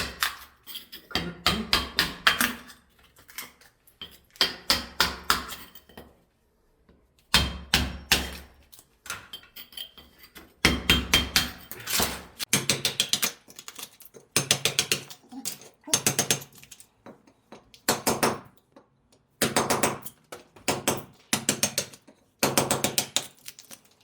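Hammer tapping on the wood flooring in quick runs of blows, about a dozen runs with short pauses between them, each blow ringing slightly.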